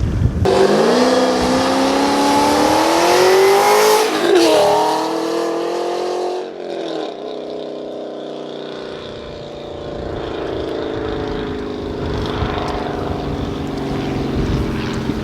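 Ford Mustang V8 exhaust on a hard launch. The engine note starts suddenly, climbs for about four seconds, breaks briefly and climbs again, then falls away about six seconds in. A lower, steady engine note follows.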